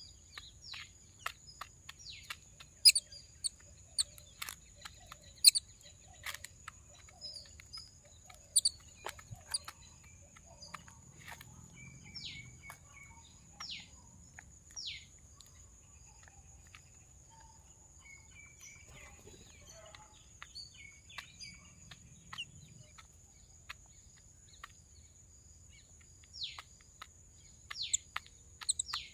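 Small birds chirping: many short, sharp, downward-sliding chirps, thick in the first few seconds and again near the end and sparser in between, over a steady high-pitched tone.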